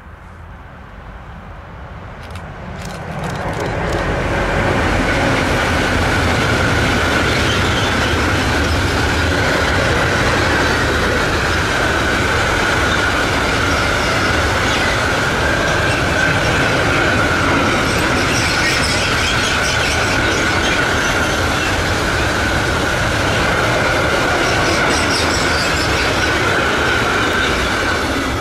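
A train passing close by: it builds over the first few seconds, then gives a loud steady run of wheels on rails with one steady high squeal over it for over twenty seconds, and cuts off suddenly at the end.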